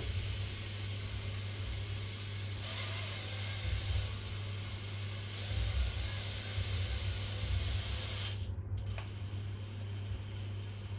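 Makita cordless drill running slowly as it drives a straight-flute tap into a hole in the cast-iron mill column, a steady whirring hiss over a low hum. It gets brighter a few seconds in, cuts out suddenly near the end with a single click, then carries on more quietly.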